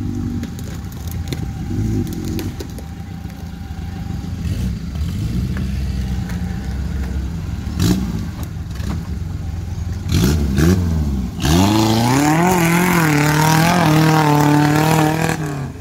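Small off-road 4x4's engine at low revs as it crawls through deep mud, with a few knocks and scrapes. About ten seconds in the revs climb, and it then runs loud at high revs with the pitch wavering up and down, pulling under load through the mud, until it eases off just before the end.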